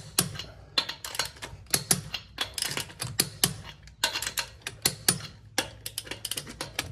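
Torque wrench ratcheting while lug nuts are tightened to spec: a run of sharp clicks, a few a second, coming in irregular bursts.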